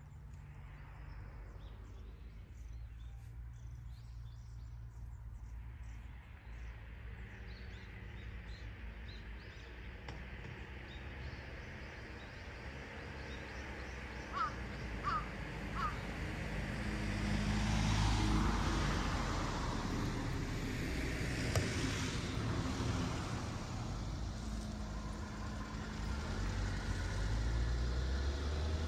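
Road traffic: a low vehicle engine rumble that swells to its loudest about eighteen seconds in and rises again near the end. Three short chirps about fourteen to sixteen seconds in.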